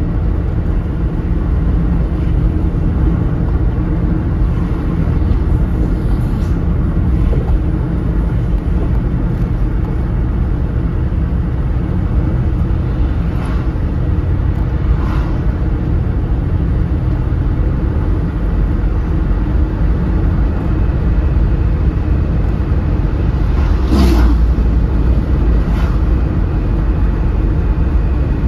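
Steady road noise heard from inside a moving car's cabin: the low rumble of tyres and engine at cruising speed. A few brief faint clicks come through, one plainest near the end.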